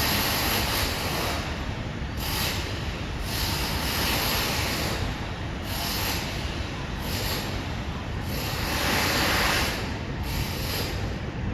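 Renovation noise heard from a building across the street: a steady rumbling din with irregular, roughly second-long bursts of hissing noise, like power-tool grinding or cutting.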